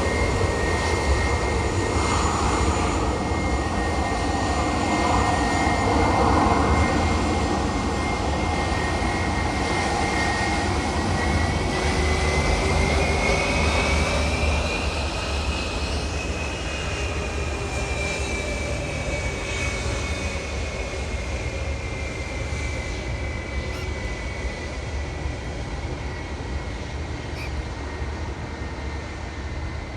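Jet airliner's engines running with a low rumble and a steady whine. The whine rises in pitch midway and falls back again, and the sound fades slowly toward the end.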